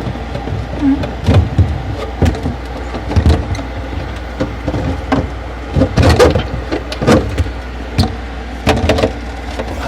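Irregular knocks and clatters of the refrigerator's freezer cover and panel being handled and moved, over a steady low hum.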